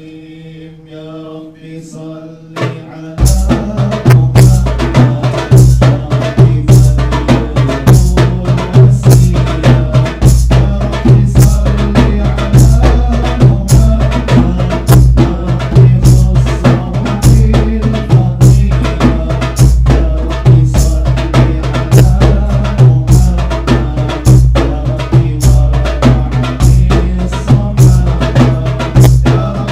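Men's voices chanting an Arabic devotional qasidah. About three seconds in, frame drums come in with a steady, driving rhythm of heavy strikes, and the chanting goes on over them.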